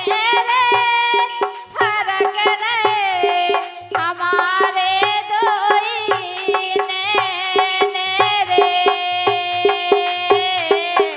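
Bundeli folk instrumental: a bulbul tarang (keyed Indian banjo) plays a bending melody while a brass hand rattle is shaken in an even rhythm over a low steady beat.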